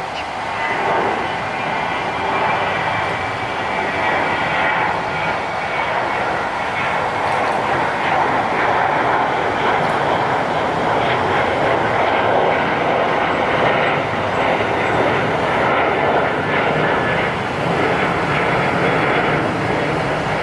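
Jet airliner engines running, a loud, steady rushing noise that grows a little louder over the first several seconds and then holds.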